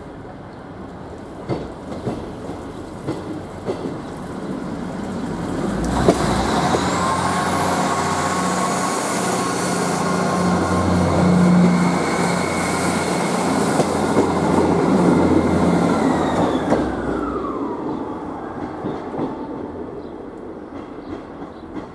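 Class 158 diesel multiple unit pulling away and passing close by, its underfloor diesel engines running under load with a high whine that rises in pitch as it gathers speed. The whine drops in pitch and the sound fades as the unit goes by. There are light wheel clicks on the track early on.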